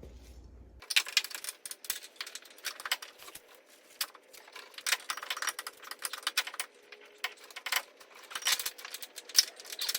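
Irregular metallic clinking and rattling of a shock bolt, its nut with a welded-on tab, and hand tools being worked into a pickup's upper rear shock mount, starting about a second in.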